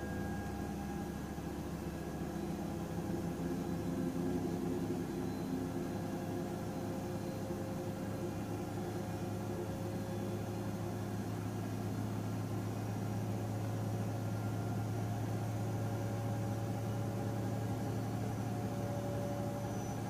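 Samsung WW10H9600EW front-loading washing machine spinning at high speed: a steady hum from the drum and motor with faint steady whining tones over it. The low hum grows stronger about halfway through.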